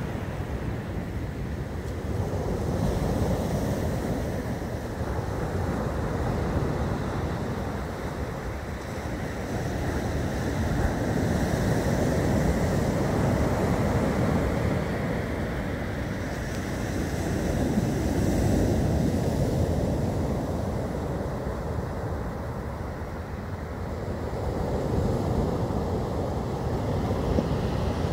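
Rough storm surf breaking on the shore, the wash swelling and easing every several seconds, with wind blowing on the microphone.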